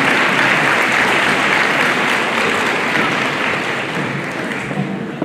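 Audience applauding, the clapping slowly dying away over the last seconds.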